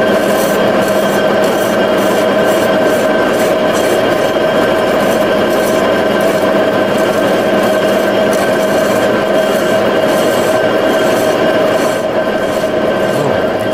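Aluminium alloy wheel turning on a 1942 lathe while a radius steel skims its face: a steady scraping with a steady ringing tone over it.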